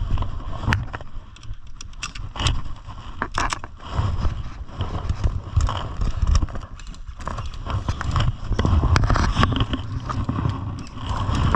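Irregular knocks, clicks and scuffs of a player moving and handling gear right against a body-worn camera, over a constant low rumble on the microphone.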